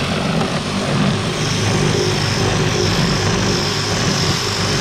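Cordless DeWalt combination drill running steadily with a flat (spade) bit, boring into a wooden sheet; a high whine joins the motor noise about a second and a half in.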